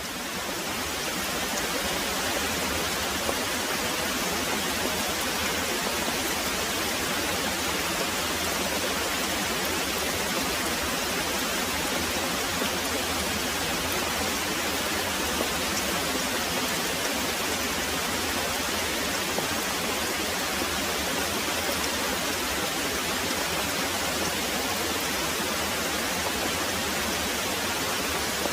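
Heavy rain pouring steadily, an even hiss with no distinct thunder, fading in over the first second or two.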